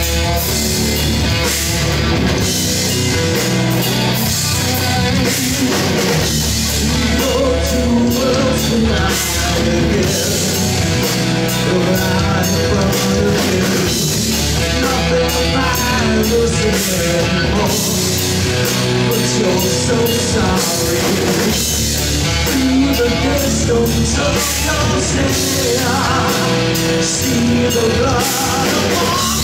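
Live rock band playing a song loud, with guitars, bass and drum kit driving a steady beat.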